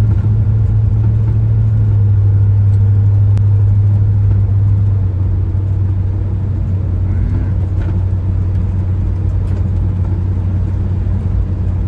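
Steady low drone of a vehicle's engine and tyres on the road, heard from inside the cab while driving, easing off a little about five seconds in.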